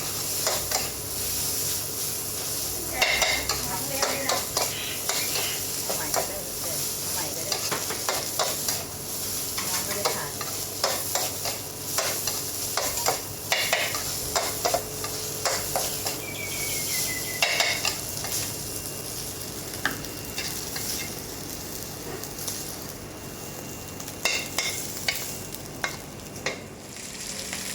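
Food sizzling in hot oil on a pan or griddle, with a metal spatula repeatedly scraping and tapping against the pan as it is stirred and turned.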